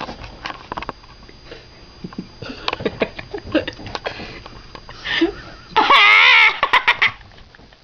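A person making weird vocal noises: scattered mouth clicks and breathy sounds, then about six seconds in a loud, wavering cry with a rapidly wobbling pitch lasting under a second, followed by a few sharp clicks.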